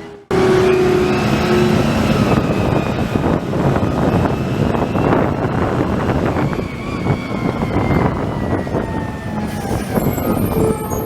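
Garbage truck running under load, with a thin, drawn-out brake squeal that slowly falls in pitch in the second half.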